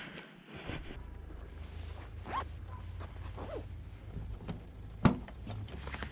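Rustling and crunching footsteps on snow, over a low steady hum, with two short high whines and a sharp knock about five seconds in as the hunting dogs are loaded into the boot of a car.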